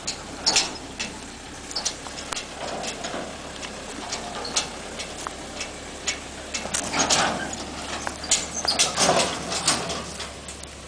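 Footsteps pushing through dry grass and brush, with twigs and dry stalks crackling and snapping in an irregular run of sharp clicks and rustles, busiest about seven and nine seconds in.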